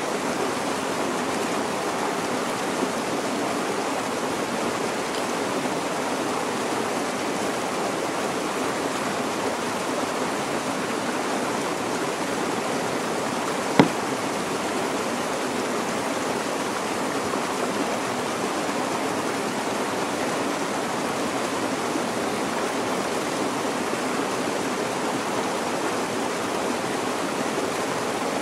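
Steady, even rush of a running stream, with one sharp click about halfway through.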